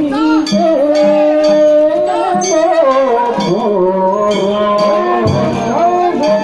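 Danjiri hauling song (hikiuta) sung in long, wavering held notes, with percussion strikes from the cart's drum and gongs.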